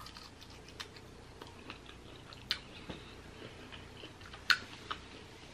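A person chewing a mouthful of food close to the microphone: faint wet mouth clicks and smacks, a little louder about two and a half and four and a half seconds in.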